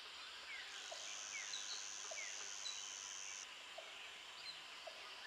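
Faint nature ambience: short chirps that fall in pitch, repeating roughly once a second, over a soft hiss, with a steady high-pitched buzz for a couple of seconds in the first half.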